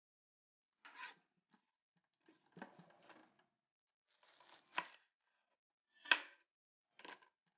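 A kitchen knife chops through a rolled bundle of taro (kontomire) leaves on a wooden cutting board. There are five separate cuts about one to one and a half seconds apart, some ending in a sharp knock of the blade on the board. The loudest cut comes a little after the middle.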